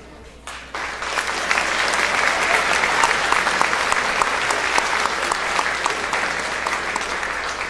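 Audience applauding, breaking out about a second in after a brief lull and going on as dense, steady clapping.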